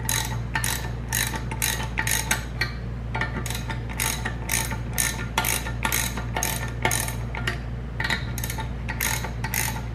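Ratchet wrench clicking in repeated runs as its handle is swung back and forth, turning the nuts down on the studs of a homemade valve spring compressor to compress the valve springs.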